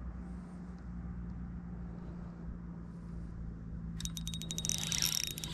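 Low steady rumble. About four seconds in, a spinning reel starts being cranked: a fast run of clicks with a thin whine as line is wound in against a hooked fish.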